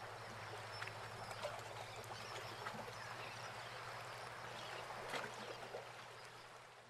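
Faint sea water lapping and trickling, with small scattered splashes, over a low steady hum; it fades out near the end.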